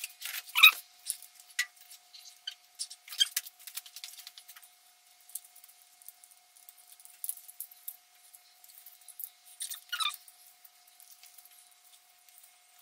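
Small scrapes and clicks of a hand working at a bare metal throttle-body mounting pad on an intake manifold. Two short squeaks slide downward, one just under a second in and one about ten seconds in, over a faint steady whine.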